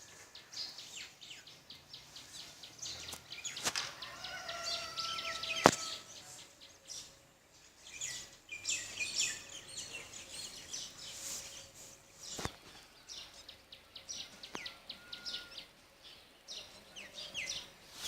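Small songbirds chirping and twittering in quick, overlapping short calls, with a few sharp clicks, the loudest about five and a half seconds in.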